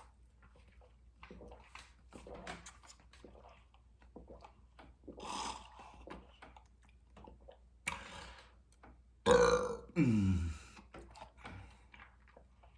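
A person belches loudly twice in quick succession about nine seconds in, each burp falling in pitch; before that there are only faint small clicks and rustles.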